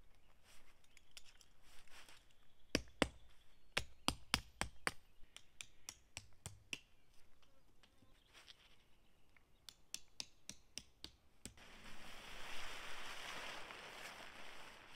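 Metal tent stakes being handled, clicking and knocking against each other in irregular sharp clicks, thickest a few seconds in. Near the end a rustling noise takes over.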